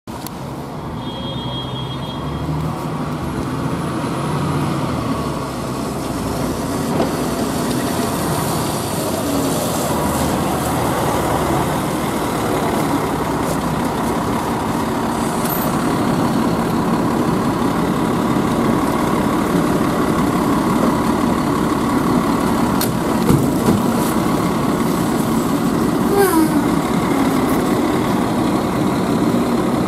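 Fire engine (pumper) diesel engine running as the truck drives up and turns close by, growing louder over the first several seconds and then steady.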